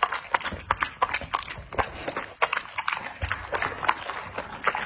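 Dog eating from a bowl close to the microphone: quick, irregular crunching, chewing and lip-smacking clicks, several a second.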